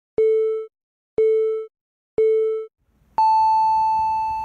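Time-signal pips added as a sound effect: three short beeps a second apart, then one long beep an octave higher that slowly fades, in the pattern of a radio time signal.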